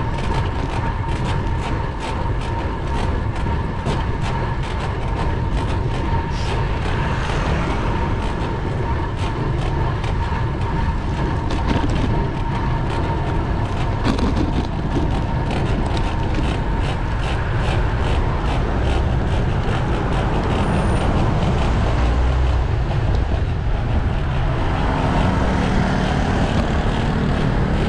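Road bicycle being ridden: a steady rumble of wind on the microphone and tyres on the road, with many small irregular knocks and rattles from the road surface. A thin steady whine runs under it and fades out after about twenty seconds.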